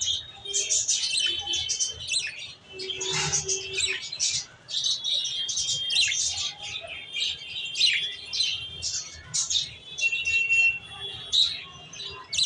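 A group of small birds chirping together: a dense, continuous chatter of short high calls overlapping one another, with a few held whistled notes mixed in.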